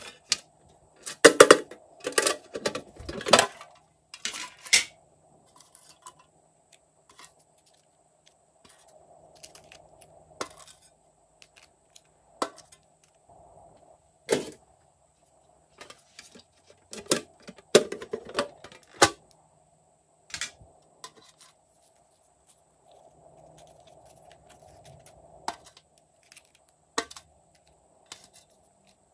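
Small lidded containers of slime toppings being opened, handled and set down, with sharp clicks and clatters. They come in two busy clusters several seconds apart, with scattered single clicks between.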